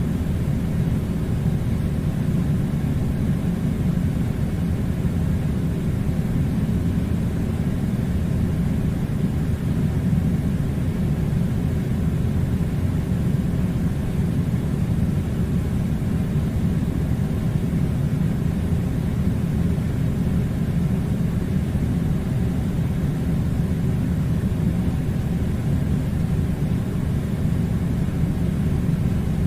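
Air conditioner running with a steady low rumbling hum and hiss, unchanging throughout.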